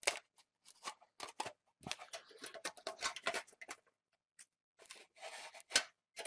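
Thin metal shield and plastic flap being peeled and pried off the back of a laptop LCD panel, crinkling and crackling in a string of small clicks and rustles. The clicks are busiest from about two to four seconds in and again around five seconds in.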